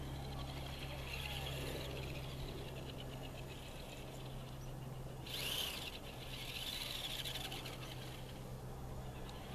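Traxxas Skully RC monster truck's electric motor whining faintly as it drives across ice and snow, the whine rising and falling with the throttle over a steady low hum. A brief, louder hiss about halfway through.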